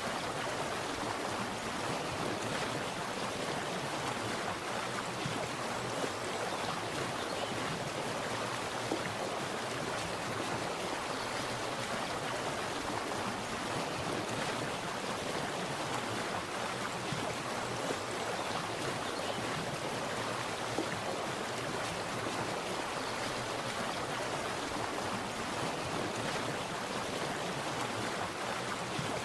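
Water splashing and rushing steadily, a continuous even noise without pauses.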